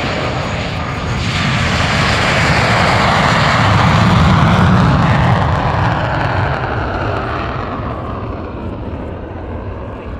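Jet fighter's afterburning turbojet at full power in a takeoff run: a loud, continuous rush that swells to a peak about four to five seconds in as the jet passes, then fades as it climbs away.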